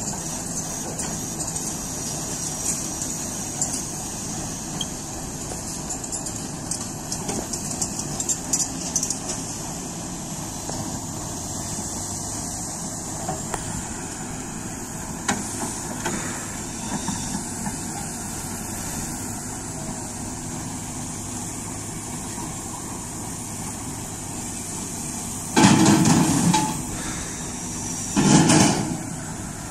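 Heavy diesel engine idling steadily, with a few light clicks. Near the end come two loud bursts about two seconds apart, the first a little over a second long and the second shorter.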